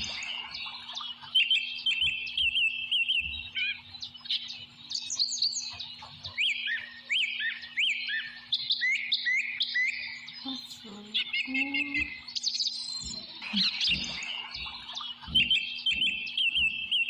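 Birds chirping and calling over and over, a busy run of short chirps that sweep up and down in pitch, with a faint steady low hum underneath.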